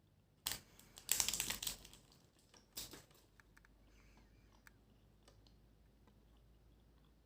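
Close-up handling noises: a sharp click, then about a second of dense crinkling, another click, and a few faint ticks.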